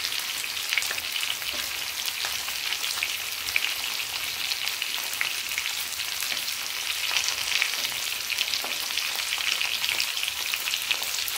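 Whole green chillies frying in hot mustard oil in a stainless steel kadhai: a steady sizzle with fine crackling, stirred now and then with a wooden spatula.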